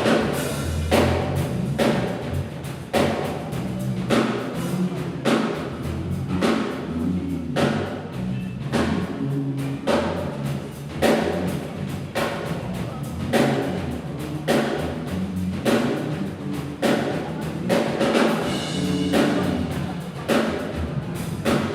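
Drum kit played continuously in a steady groove, with strong accented hits about once a second. Pitched low notes change underneath the beat.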